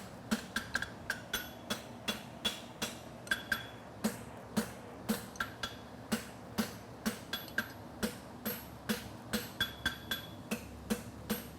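Hand hammer forging a hot steel concave shoe on an anvil, upsetting the heel caulk: steady blows about two to three a second, each with a short metallic ring. A steady fan buzz from an evaporative cooler runs underneath.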